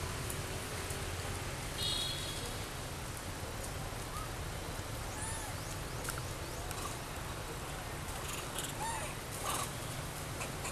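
Long-tailed macaques giving scattered short squeaks and chirps, more often in the second half, over a steady outdoor hiss.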